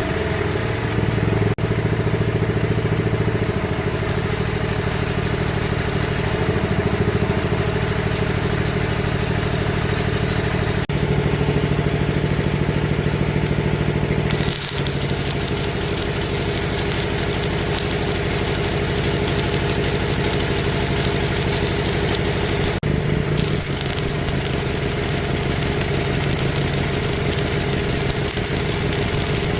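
An engine running steadily, its note shifting a few times along the way.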